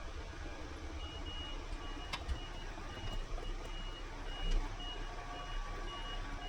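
Reversing alarm beeping steadily at about two high beeps a second, starting about a second in, over a low steady rumble. There is a sharp click about two seconds in and a dull thump midway.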